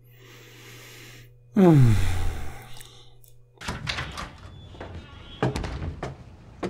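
TV drama soundtrack: a sudden loud sound falling steeply in pitch, then a run of sharp knocks and thuds as two people grapple.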